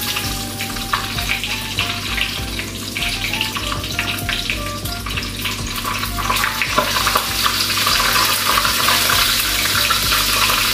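Beaten egg frying in hot oil in a wok, a steady crackling sizzle that grows louder about two-thirds of the way through. Light background music with a simple melody plays underneath.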